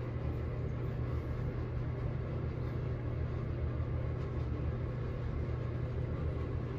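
Steady low engine hum with a faint rumble, unchanging throughout.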